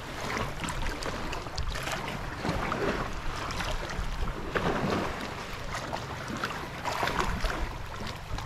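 Shallow seawater sloshing and splashing irregularly around people wading and handling a fishing net, with wind buffeting the microphone as a low rumble.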